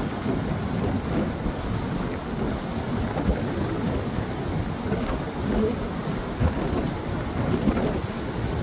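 Sea waves breaking on the shore: a steady, dense wash of surf with a deep rumble and no pauses.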